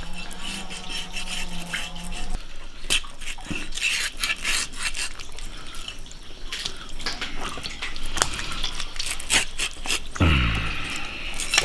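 Wet squelching and dripping as a whole sturgeon is gutted, with scattered knocks and scrapes of a knife and cleaver against a wooden chopping block.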